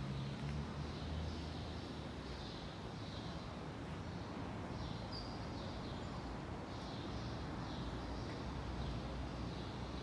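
Outdoor city ambience: a steady low traffic rumble, with a bird calling over and over in short high chirps.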